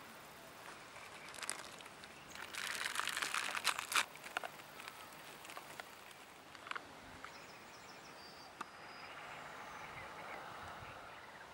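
Crinkling and rustling of a plastic bag and a foil zip pouch as croutons are tipped in. It starts about two and a half seconds in and lasts about a second and a half, with crackly ticks. A few single light clicks follow.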